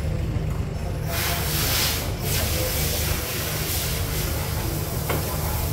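A steady hiss that starts about a second in and runs on, over a low, steady hum.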